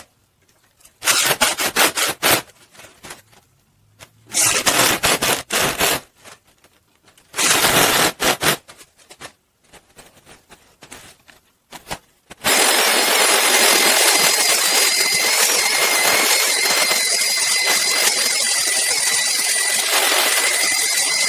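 Handheld electric orbital sander running steadily on a wooden slab from a little past halfway, a rough even noise with a thin high motor whine over it. Before that there are three short bursts of harsh rough noise, a couple of seconds apart.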